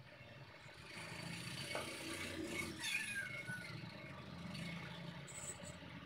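A cat meows once, a falling call about three seconds in, over the faint scratch of a pencil on paper.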